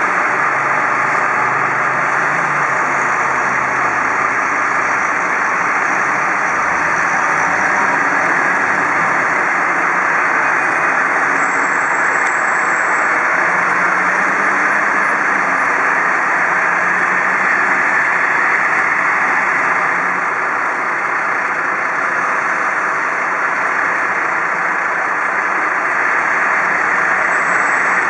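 Several fire engines' diesel engines idling and pulling away, a steady, even noise of heavy vehicles running, with no sirens.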